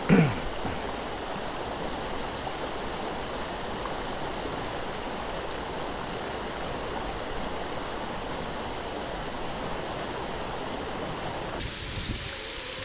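Shallow river current running over a riffle, a steady rush of water.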